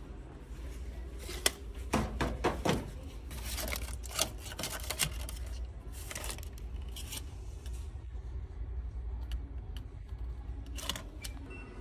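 Shop ambience: a steady low hum with scattered clicks and rustles.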